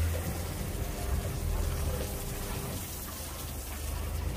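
Water running and splashing into a top-loading washing machine's tub as it fills: a steady hiss over a low hum.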